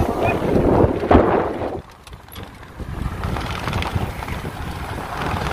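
Wind buffeting the microphone over the rumble of a moving vehicle, with a brief lull about two seconds in.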